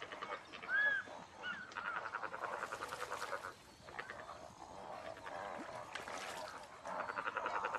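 A flock of waterbirds calling: bursts of rapid, rattling nasal calls, with a short rising-and-falling call about a second in.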